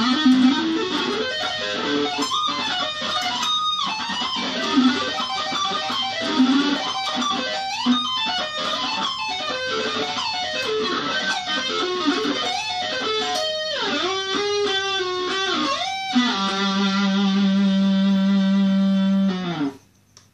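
Schecter Omen Extreme 6 electric guitar played through a Roland Cube amp: fast lead runs with bends and a wavering vibrato note, then one long held note near the end that is cut off suddenly.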